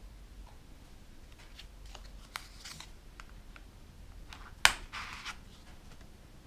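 A plastic scraper card is drawn across a metal nail-stamping plate to scrape off excess nail polish. Light clicks and taps come first, then a short scrape. A little past halfway there is one sharp click and another brief scrape.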